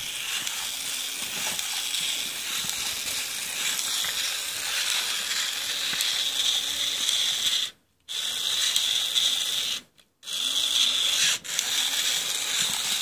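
Furby toy's internal motor and gears running, a steady mechanical whirring and clicking over hiss from a toy the owner thinks is glitching. The sound cuts out completely twice, briefly, about two thirds of the way through.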